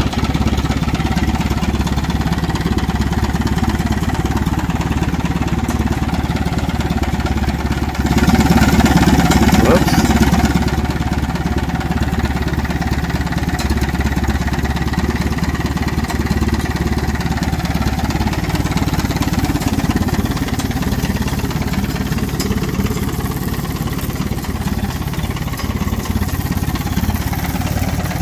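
McCormick International AW6 tractor's four-cylinder kerosene-burning engine idling steadily. It gets louder for about two seconds, starting about eight seconds in.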